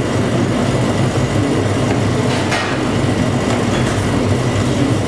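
Steady, loud hum and rumble of a commercial kitchen's ventilation, with one short scrape or knock about halfway through.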